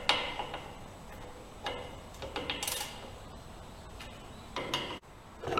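Hand tools and metal parts being handled and set down: several short metallic clinks and clatters, spread a second or two apart.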